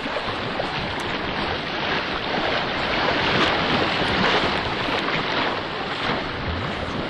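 Steady rushing wind noise on the microphone, swelling a little around the middle.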